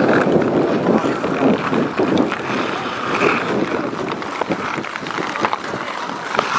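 Ice-hockey skate blades scraping and carving across natural lake ice, with scattered sharp clacks of sticks and puck.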